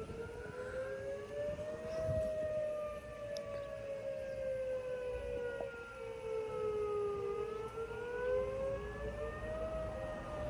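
Outdoor warning sirens sounding in their routine first-Thursday monthly test: steady wailing tones at a few pitches that slowly rise and fall over several seconds.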